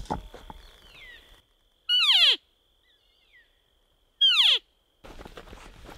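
Two short elk cow calls, or mews, about two seconds apart, each sliding steeply from high to low pitch; the second starts higher. Before them there is faint rustling.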